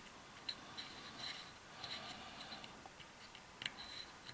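Small glued card tabs being folded down and pressed with the fingertips: faint scratchy rubbing of card with scattered light ticks, the sharpest about three and a half seconds in.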